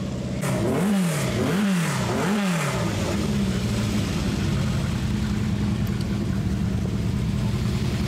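Racing car engine revving up and down three times in quick succession, about a second in, then settling back to a steady drone.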